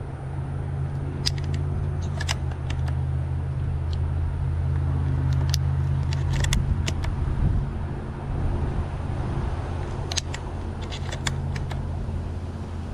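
12-gauge buckshot shells being pushed one at a time into a semi-automatic shotgun's magazine tube, giving short clusters of sharp metallic clicks, over a steady low hum.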